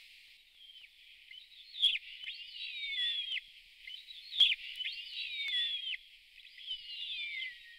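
Bird calls: several phrases of high whistled notes, many sliding down in pitch, with two sharp clicks about two and four and a half seconds in.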